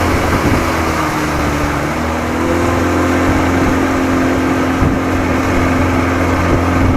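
1987 Johnson 40 hp two-stroke outboard motor running steadily as the boat moves, its engine note stepping up slightly in pitch about two seconds in, over wind and water noise.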